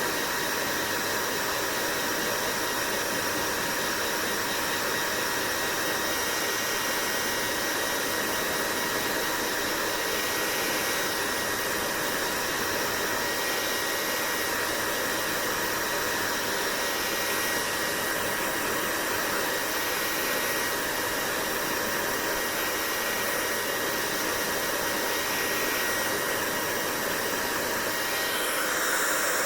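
Hair dryer running steadily: an even rush of blown air with a faint steady whine from its motor and fan, swelling slightly near the end.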